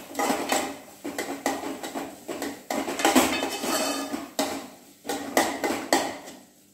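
A steel spoon scrapes and knocks against an aluminium pot in irregular strokes, a few a second, while stirring and frying a thick masala with pieces of bombil (Bombay duck).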